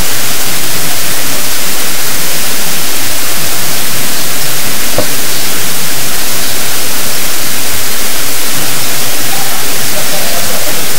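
Loud, steady hiss of static-like noise, with no pitch or rhythm to it.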